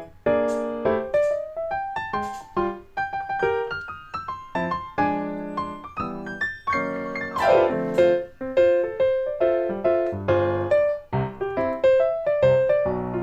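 Background piano music: a melody with chords, the notes struck and dying away one after another, with a quick run of notes partway through.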